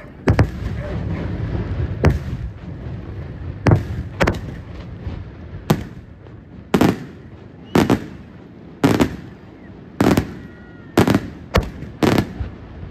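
Aerial firework shells bursting overhead in a steady series of sharp bangs, about one a second, each trailing off in a low rumble. A dense continuous rumble fills the first couple of seconds.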